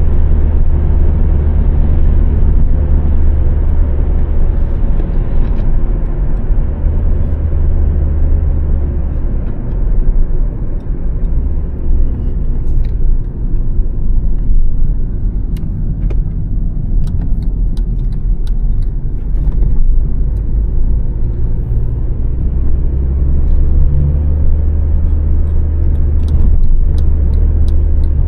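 A 2006 Honda Civic's 1.8-litre four-cylinder petrol engine and tyres on the move: a steady, loud, deep rumble of engine and road noise with slight shifts in engine tone, and scattered faint clicks in the second half.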